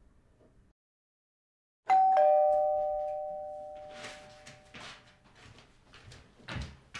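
Two-tone electric doorbell chime, a higher note and then a lower one, ringing out and fading over a few seconds. Then footsteps on a wooden floor.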